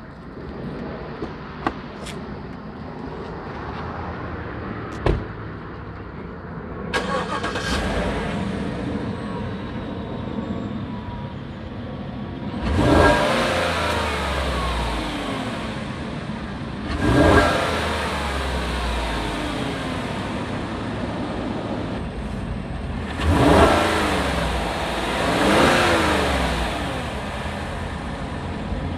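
Chevrolet Silverado V8 with its stock air intake box starting up and idling, then revved four times, each blip rising quickly and falling back to idle.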